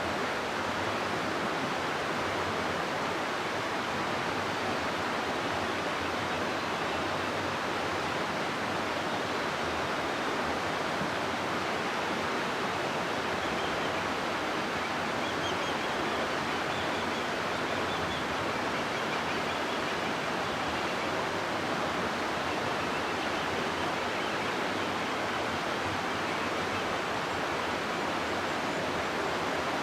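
River water rushing steadily through a rocky gorge: an even, unbroken roar of flowing water.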